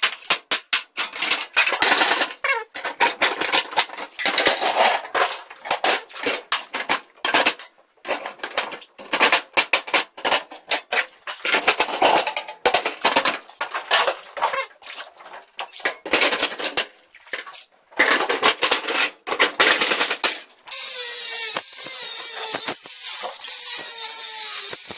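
Hammering: fast, irregular runs of sharp blows. About twenty seconds in, a power drill starts, its whine rising and falling in pitch as it runs.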